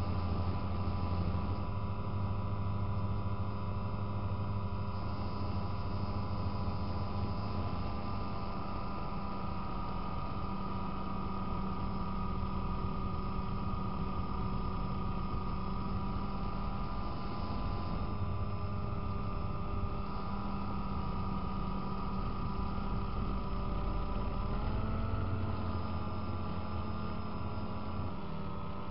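DJI Phantom quadcopter's electric motors and propellers running steadily, heard close up through its own onboard camera, a constant multi-tone hum whose pitch shifts briefly about 25 seconds in as the drone manoeuvres.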